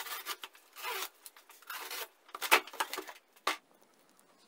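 A cardboard box being cut open and unpacked: a utility knife slicing packing tape, with cardboard scraping and rustling and three sharp clicks in the second half.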